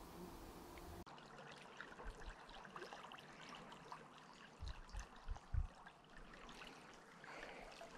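Faint trickling of a shallow stream, with scattered small ticks and a few short, soft low thumps about halfway through.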